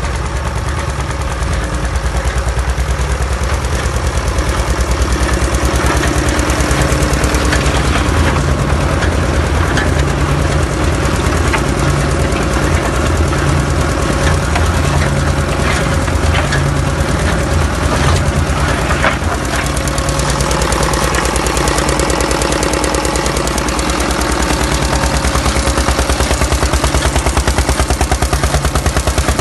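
Small stationary engine running steadily with a rapid, even beat, driving a 1937 Parker roller pan mixer. Between about 8 and 20 seconds in, irregular clatter from the mixer's rollers and pan rises over the engine.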